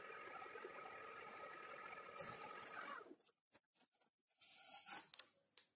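Faint 1K62 lathe running during a boring cut, a steady hiss with a thin whine, which cuts off about three seconds in. A few faint rustles and taps follow as a rag wipes the part.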